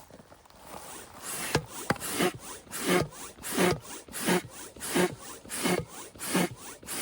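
Tent zipper being pulled shut in a run of short, evenly spaced strokes, about nine in all, each a quick scrape that falls in pitch.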